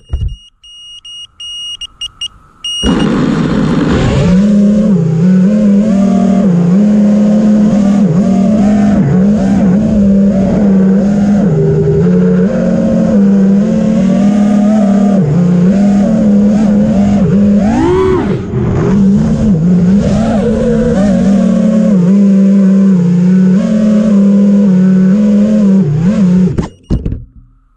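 Brushless motors and props of an FPV freestyle quadcopter (Emax Eco 2306 1700kv motors on 6S), heard through its onboard GoPro: a few short motor spurts in the first seconds as it flips itself upright from upside down (turtle mode), then from about three seconds in a loud, steady propeller buzz whose pitch steps up and down with the throttle, with one quick rising-and-falling sweep around eighteen seconds in. The buzz cuts off about a second before the end.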